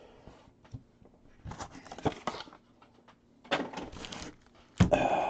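Crinkling of plastic and foil trading-card pack wrappers being handled, in short bursts, the loudest near the end.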